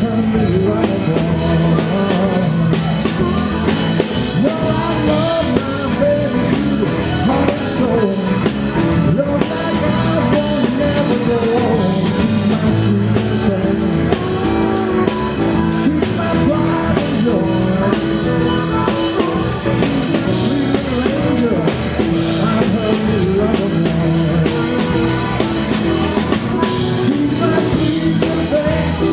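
Live blues-rock band playing a song: a man singing lead over electric guitar, bass, drum kit, keyboards and harmonica.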